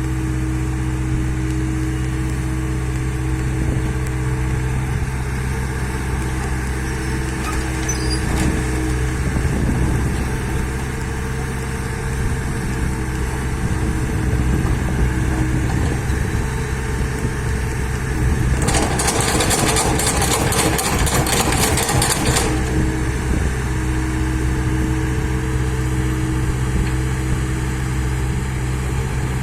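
Bulldozer's diesel engine running steadily, with a few seconds of harsh, crackling noise about two-thirds of the way in.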